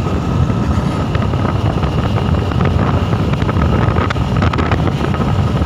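Wind buffeting the microphone on a moving vehicle, with the steady rumble of the ride underneath.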